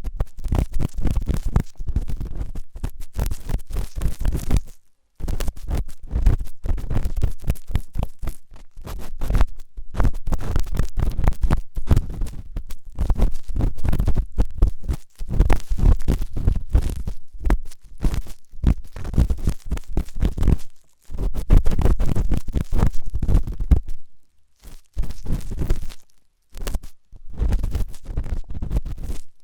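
Intense ASMR ear cleaning: an ear pick scraping and rubbing hard against an ear right at the microphone, in fast, dense strokes with a heavy, close rumble. The strokes come in long runs, broken by a few brief pauses.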